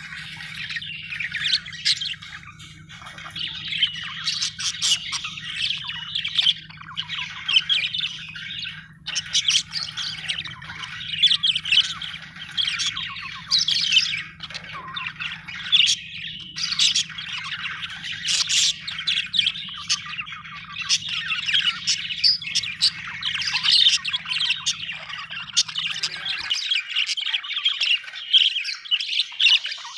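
Budgerigar chattering and warbling without a break, a rapid stream of short chirps and squawks, the contented chatter of a happy budgie. A low steady hum underneath stops about 26 seconds in.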